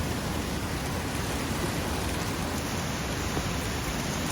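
Heavy rain pouring steadily, an even unbroken hiss with a low rumble underneath.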